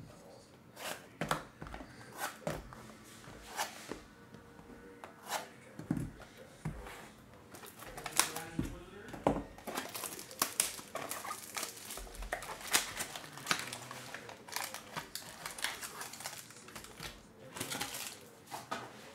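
Sealed cardboard trading-card boxes being handled, stacked and set down on a table, giving irregular taps and knocks, mixed with crinkling of plastic wrap and a foil pack.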